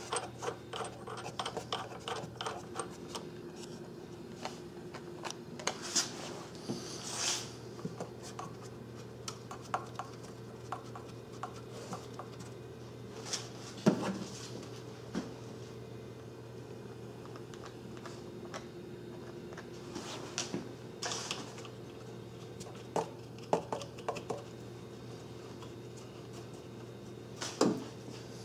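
Hand work on metal fasteners: scattered clicks, taps and short scrapes of bolts, nuts and a hand tool as the engine mount bracket is bolted down, with a run of quick clicks in the first few seconds. A steady low hum runs underneath.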